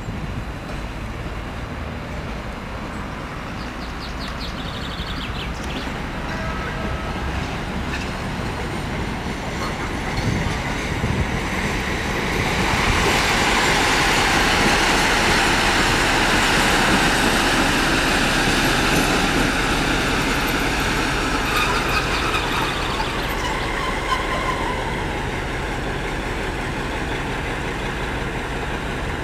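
PKP class SU45 diesel locomotive hauling passenger coaches past at close range. Its engine and the running noise of the wheels on the rails build up, are loudest for several seconds as it goes by, then ease off.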